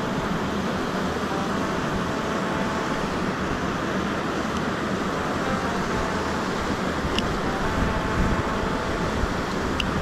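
Steady rush of a small waterfall cascading into a mountain-stream pool, with two faint clicks in the second half.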